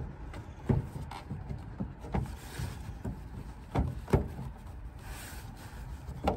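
A string of sharp plastic clicks and knocks from hands working at clips and trim in a car's engine bay, spread irregularly over a steady low rumble.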